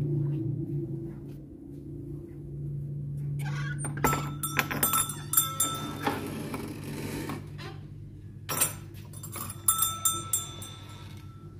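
A low steady hum fades out, then come two spells of metallic jingling and clinking, each a few seconds long.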